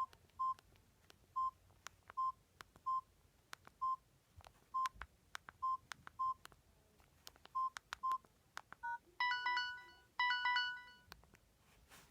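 Samsung SGH-C270 mobile phone keypad: about a dozen plastic key clicks, each with a short beep at one pitch, spaced unevenly over eight seconds. Near the end come two short, bright chimes of several tones each from the phone's speaker.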